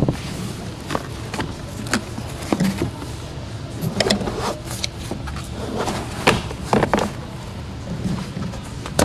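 Ford F-150 plastic pillar trim panel being worked loose and handled. Irregular sharp clicks, knocks and plastic rattles come in clusters, the busiest around four and six to seven seconds in.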